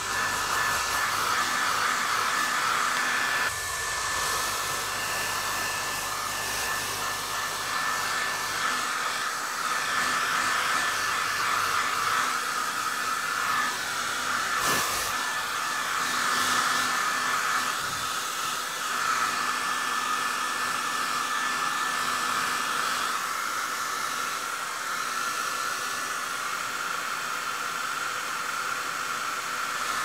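Hair dryer running steadily: a continuous rush of blown air with a faint steady whine riding on it.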